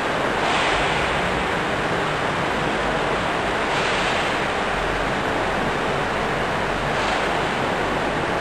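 Steady rushing noise that swells about every three seconds, like surf breaking.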